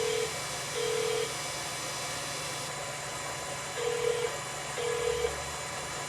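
Telephone ringback tone over the phone line while a call is being transferred: two short beeps about a second apart, a pause of about two and a half seconds, then two more.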